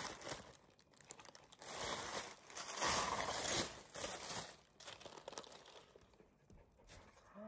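A parcel's packaging being crumpled and torn open: irregular rustling, loudest around two and three seconds in, then quieter crinkles.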